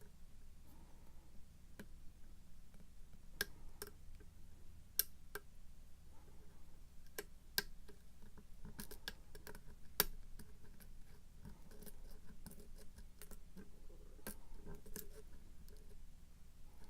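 Lock pick working the pins of a pin-tumbler lock: small, irregular metallic clicks and ticks as pins are lifted and set under tension, the sharpest about 3.5, 5, 7.5 and 10 seconds in. A faint steady hum lies underneath.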